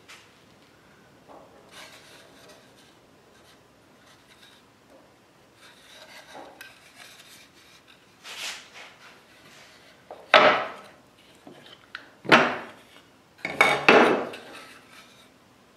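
Wooden pieces being handled in the shop: light rubbing and scraping, then three sharp wooden knocks about two seconds apart near the end.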